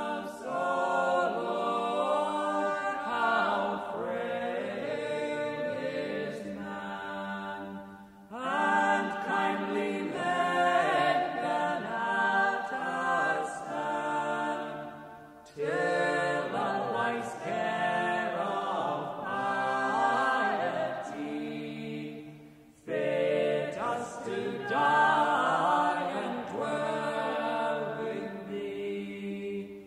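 A mixed-voice quartet singing a shape-note hymn unaccompanied in four-part harmony, in four long phrases, each separated by a short breath pause.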